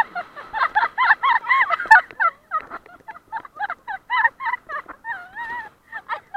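A flock of birds calling: many short, high-pitched honking calls in quick succession, often overlapping, with a couple of longer wavering calls about five seconds in.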